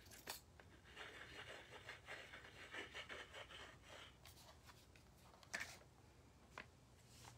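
Faint rustling and scraping of small craft pieces being handled, followed by a few light clicks and taps, the sharpest about five and a half seconds in.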